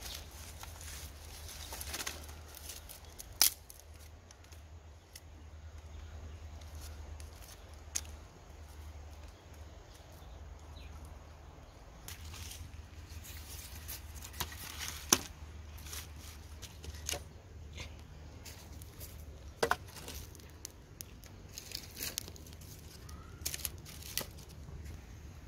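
Dry twigs and sticks being broken and laid by hand while kindling a wood fire: irregular sharp snaps and clicks, about ten over the stretch, with light rustling of dry leaves and kindling between them.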